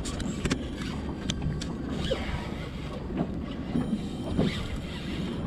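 Wind on the microphone and water moving around a small boat on open sea, with a few sharp clicks in the first second and a half.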